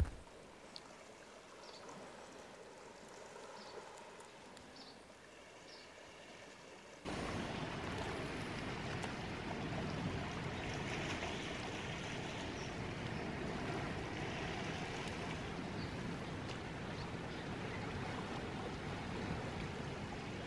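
Near quiet with a few faint ticks, then, starting suddenly about seven seconds in, a steady hiss of sea washing on a stony shore.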